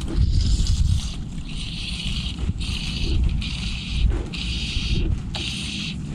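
Wind buffeting the microphone in a steady low rumble, over a hiss of water against a canoe's hull that comes and goes in short spells.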